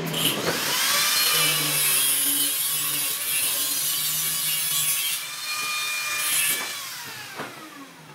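Handheld angle grinder with an abrasive disc spinning up and grinding stainless steel tube, a steady high whine over a hiss, with a brief easing off about five seconds in. It winds down near the end, its whine falling in pitch.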